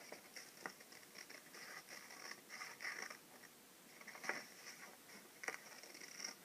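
Scissors cutting through paper in short, faint crunching snips, with a few sharper clicks as the blades close.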